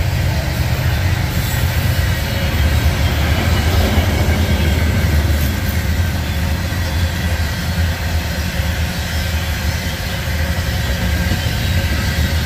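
Freight train of covered hopper cars rolling past: a steady rumble of steel wheels on rail, with no locomotive engine prominent.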